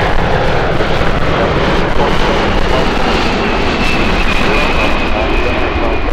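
Four-engine Boeing 747-400 freighter's jet engines running loud and steady as it lands, with a thin high whine that comes in about halfway through and falls slightly in pitch near the end.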